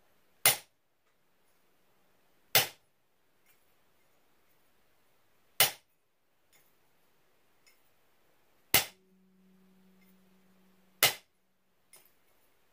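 Hammer striking a hand-held steel punch on metal laid on a bench vise's anvil: five sharp metallic strikes, spaced irregularly two to three seconds apart. The punch is shaping a metal leaf keychain.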